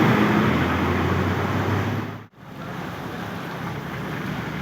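Roadside traffic noise: a passing vehicle's engine hum fading over the first second or two under a steady rush of road noise. The sound cuts out abruptly about halfway through and comes back quieter.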